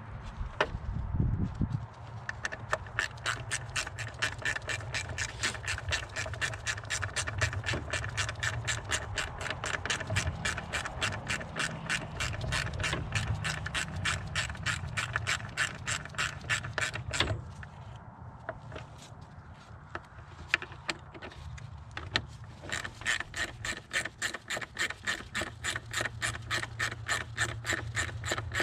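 Hand ratchet clicking quickly and evenly, several clicks a second, as a bolt is turned. The clicking stops for a few seconds past the middle, then starts again.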